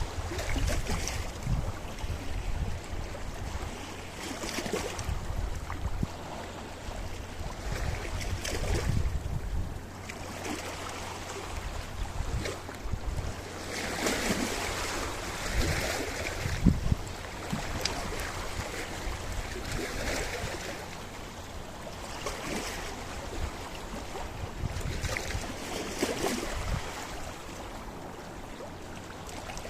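Sea waves washing in and breaking on a rocky shore. The surf swells and fades every four to six seconds over a steady low rumble.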